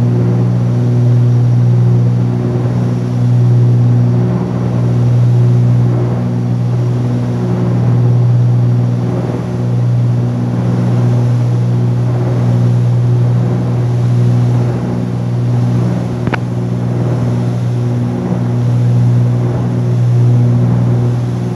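Cessna 310Q's twin Continental six-cylinder engines and propellers droning steadily in flight, the sound swelling and fading about every two seconds as the two propellers beat slightly out of sync. One brief click about sixteen seconds in.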